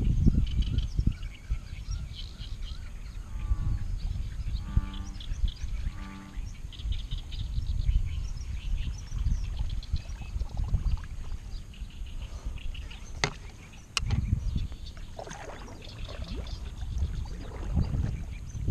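Birds chirping over a low wind rumble on the microphone. A few short honking bird calls come about four to six seconds in, and two sharp clicks follow a little past the middle.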